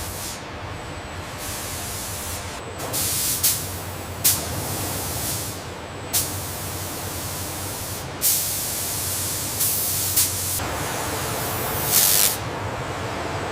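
Repeated bursts of spraying hiss, some brief and one lasting about two seconds, over a steady low hum and machine noise.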